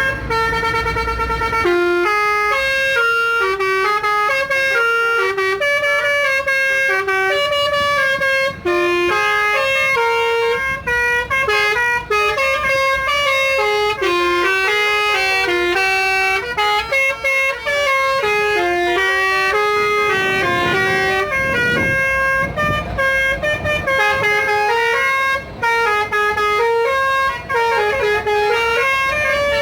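Modified telolet truck horn, a multi-tone air horn, playing a tune. It opens with a held chord for about two seconds, then steps quickly from note to note in a continuous melody.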